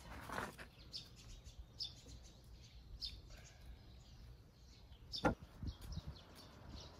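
Faint bird chirps, short and high, repeating about once a second. A single sharp knock sounds a little after five seconds in.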